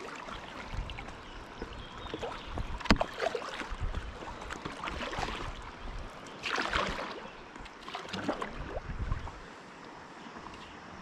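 Paddle strokes in river water: irregular splashes over a steady wash of water, with one sharp knock about three seconds in.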